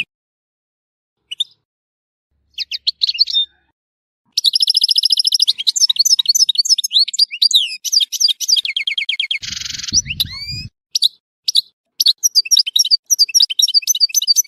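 European goldfinch singing: a few short chirps, then from about four seconds in a fast, continuous run of twittering trills and sweeping high notes, broken by a harsh buzzy note about two-thirds of the way through.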